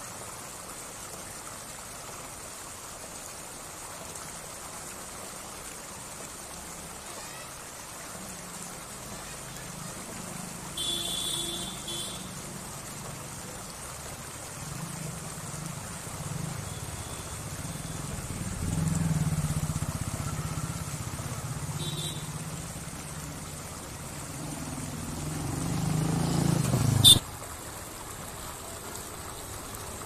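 Steady rush of river water pouring over a small weir. In the second half a low vehicle engine hum swells and then cuts off abruptly with a sharp click a few seconds before the end; a brief high-pitched sound comes about eleven seconds in.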